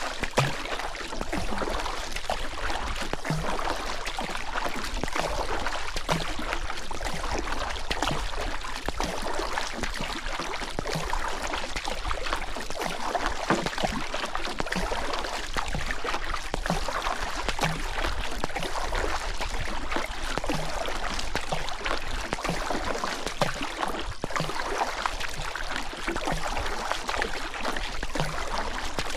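Steady rushing and gurgling of river water, with faint soft knocks every second or two.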